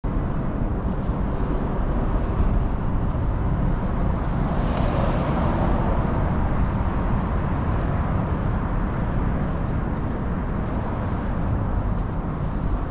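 Steady outdoor background rumble, heaviest in the low range, with a broader swell that rises and fades between about four and six seconds in.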